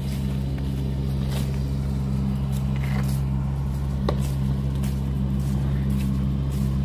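An engine running steadily at idle, a low, even drone that does not change, with a few faint clicks about one and a half, three and four seconds in.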